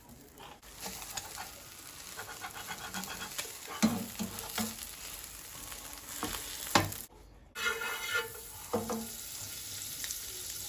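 Food sizzling in a frying pan while being stirred, with scattered knocks and scrapes of a utensil against the pan. The sizzle drops out briefly a little after halfway, then resumes.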